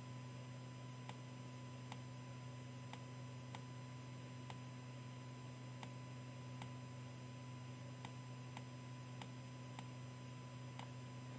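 Low, steady electrical hum with faint ticks roughly every half second to second.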